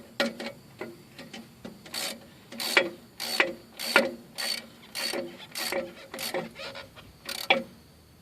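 A 10 mm ratcheting wrench being swung back and forth on a bolt, about a dozen short ratcheting clicks, roughly one every half second, as the bolt is tightened.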